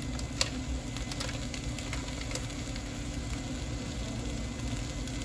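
Crabs in sauce sizzling in a wok, with scattered crackles and pops, the sharpest about half a second in, over a steady low hum.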